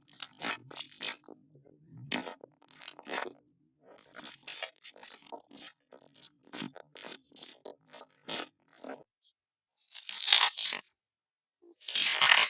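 Close-miked eating sounds: irregular crunching and chewing, with a few louder crackly bites near the middle and end.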